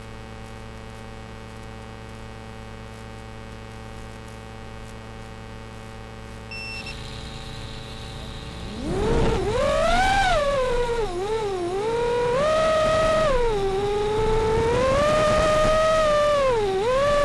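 Faint steady hum with a short high beep near seven seconds, then about nine seconds in the Martian 220 FPV quadcopter's Xing brushless motors and propellers spool up into a loud whine. The pitch rises and falls with throttle as the quad takes off and flies.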